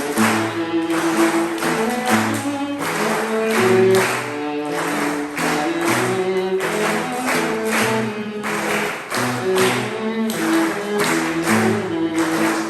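Instrumental background music: sustained string notes over a steady, evenly pulsed rhythmic beat.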